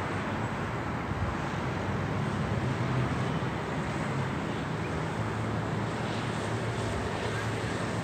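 Steady city traffic noise: car tyres and engines passing on a street, with a low rumble that swells a little about three seconds in.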